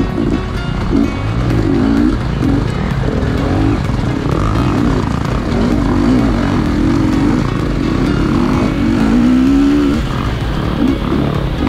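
GasGas EC250 two-stroke enduro bike engine, revving up and falling back again and again as the throttle is worked while riding on a dirt trail.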